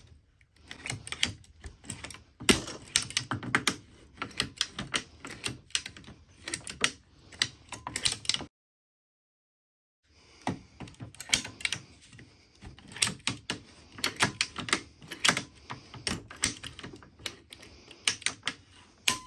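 Vintage ratcheting PVC pipe cutter being pumped through a PVC pipe: quick, irregular clicking of the ratchet as the handles are squeezed and opened again, dropping out for about a second and a half midway and then starting up again.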